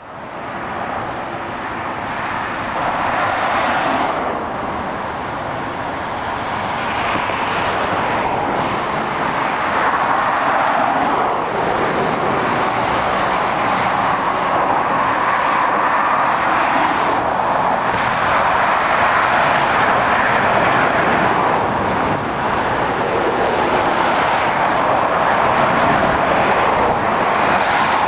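Motorway traffic: tyre roar and engines of heavy lorries, vans and cars driving past in a steady stream, swelling and easing as each vehicle goes by. It fades in at the very start.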